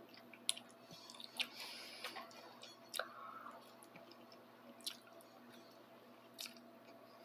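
Someone eating instant noodles dressed with ketchup and mayonnaise: faint chewing and wet mouth sounds, with about five short sharp clicks spread through.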